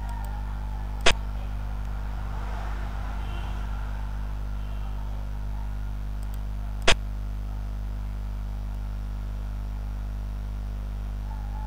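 Two sharp clicks from a xiangqi board program as pieces are placed, about six seconds apart, over a steady electrical hum.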